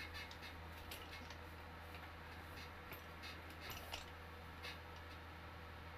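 Scattered faint clicks and light taps from handling parts of a leather office chair during assembly, over a steady low hum.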